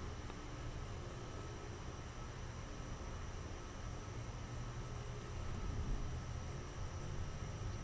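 Night insects, such as crickets, chirping in a high, even pulse of about four chirps a second over a low steady rumble and hiss.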